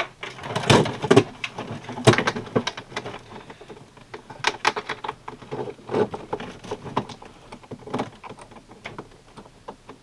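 Hands working wires and a plastic dash trim panel into place: irregular knocks, clicks and rattles of plastic, loudest about a second and two seconds in.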